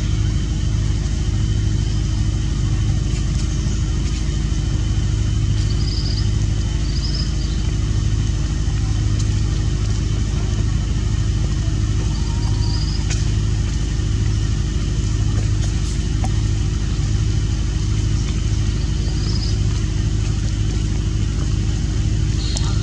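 A steady low engine-like drone with a faint constant whine over it, and a few short high chirps now and then.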